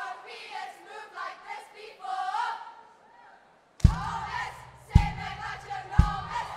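A choir of young women singing and chanting without instruments. After a short pause near the middle, heavy thumps land about once a second under their chanting, keeping the beat.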